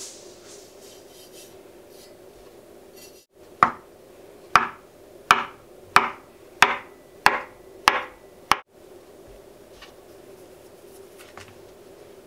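Kitchen knife cutting through a rolled log of soft potato gnocchi dough, the blade knocking on a wooden cutting board eight times at an even pace, a little over one cut a second.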